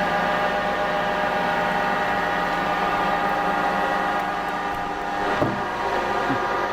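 7B57 horizontal hydraulic broaching machine running on its first start-up, giving a steady, even mechanical hum with a whine. It eases slightly near the middle, and there is a single short click about five seconds in.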